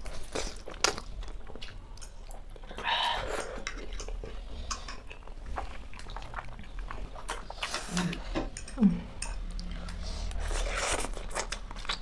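People eating spicy instant noodles up close: chewing and slurping, with many short wet mouth clicks and smacks. Two longer slurps come about three seconds in and near the end.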